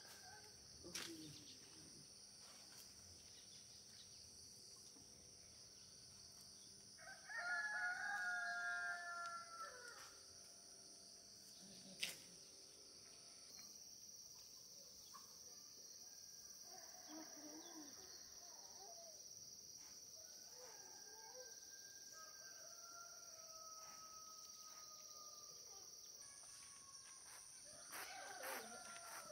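A rooster crowing once, loudly, about seven seconds in, the call lasting a few seconds. Fainter, longer crows from farther off follow later, over a steady high hiss.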